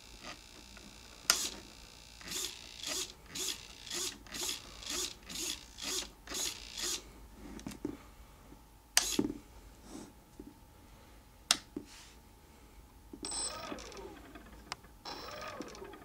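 Small RC servos in a Skyartec Cessna 182 foam model whirring in short bursts, about two a second, as the transmitter stick waggles the flaperons back and forth. A few sharp clicks fall in between, and near the end come longer whirs that slide up and down in pitch.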